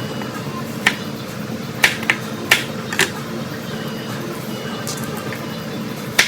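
A kitchen knife knocking on a cutting board while broccoli is cut into florets: about six sharp, uneven knocks over a steady background hum.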